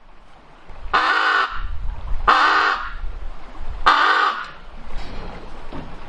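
Raven giving three harsh, croaking caws, each about half a second long and spaced a second or more apart, over a low background rumble.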